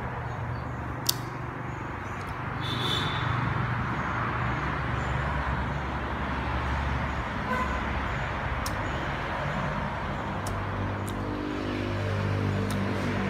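A motor engine running with a low, steady hum over a background hiss, with a second pitched drone joining about ten seconds in, and a few sharp clicks.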